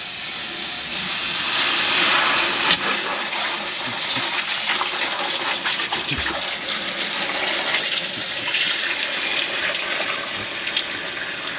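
Water pouring steadily into the rear bilge of a bass boat, coming on suddenly: the bilge is being flooded to raise the level until the new automatic bilge pump's sensor switches it on.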